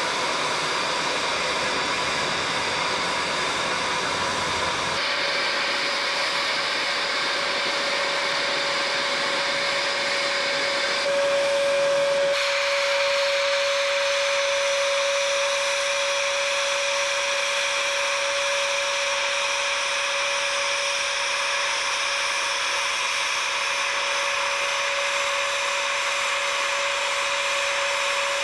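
Steady loud hiss of steam escaping from a narrow-gauge steam locomotive standing in steam, its tone changing abruptly a couple of times, with a steady pitched note running through it from about five seconds in.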